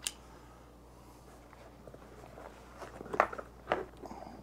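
Handling sounds from fitting a transducer arm into a Marcum Roamer shuttle bag: a sharp click at the start, a quiet stretch, then a cluster of clicks and rustles about three seconds in.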